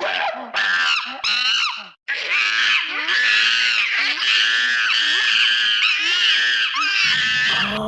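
Shrill, wavering screaming during a scuffle: short yells for the first two seconds, a sudden break, then about five seconds of one long high scream that stops near the end.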